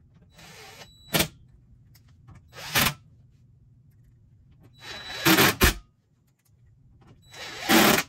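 Cordless impact driver run in four short bursts, driving screws into the dehumidifier's sheet-metal panel. The longest and loudest burst comes about five seconds in, and there is a sharp click about a second in.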